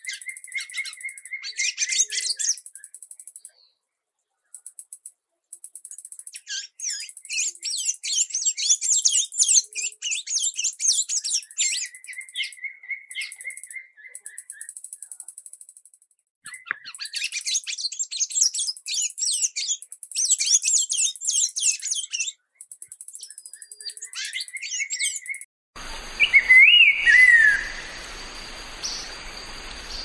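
Sayaca tanager singing: bursts of fast, squeaky twittering notes with short pauses, some phrases ending in a brief trill, over a rapid high ticking. Near the end the recording changes to a hissy background with a few whistled notes from a different bird.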